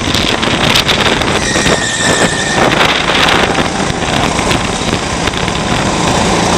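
A 200cc Honda rental kart's single-cylinder four-stroke engine running hard on track, heard from on board. A short high tyre squeal comes about two seconds in as the kart slides through a corner.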